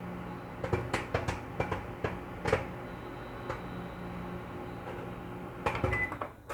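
Microwave oven running with a steady hum while popcorn kernels pop inside it, sharp single pops at irregular intervals, about a dozen in all, bunching near the end.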